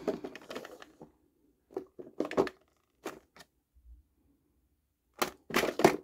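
Small clear plastic storage drawers being slid open and pushed shut: a series of short plastic clicks and knocks, with louder clacks near the end.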